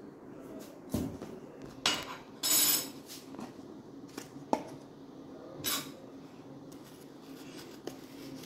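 Kitchen utensils and containers being handled: a few separate clinks and knocks, with a couple of short scraping rustles between them.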